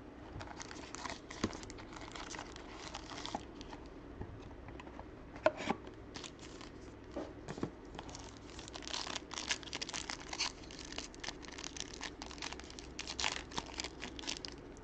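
Plastic wrapping on a box of trading cards being torn open and crinkled: scattered crackles and sharp clicks, busiest and loudest in the second half.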